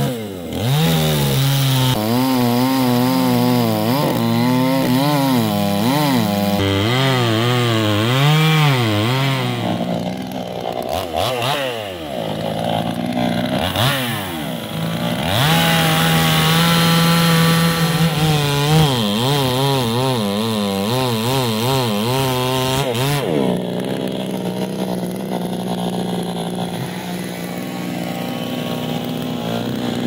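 Two-stroke chainsaw cutting into the base of a thick mangium trunk, its engine speed rising and falling over and over as the bar bites, with a stretch held steady at full throttle. About 23 seconds in it settles to a steadier, lower running.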